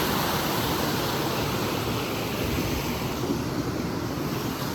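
Steady rush of falling water from a waterfall, even and unbroken.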